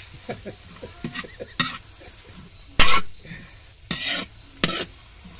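Pancit noodles being stirred and tossed in a frying pan, a utensil scraping against the pan in about five separate strokes, the loudest about three seconds in, over a faint sizzle of frying.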